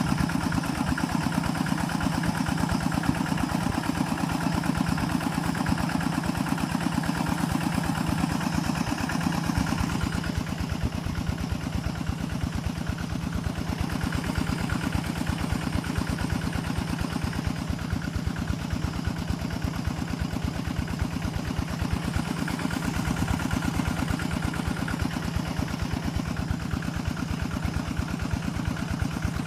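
A small engine running steadily at an even speed, with a fast, regular firing beat and a steady low hum.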